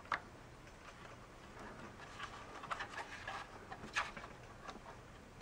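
Faint plastic clicks, knocks and rustling as a Bissell compact vacuum's motor, fitted with its black rubber ring, is pushed and turned into its plastic housing, with a sharper click about four seconds in.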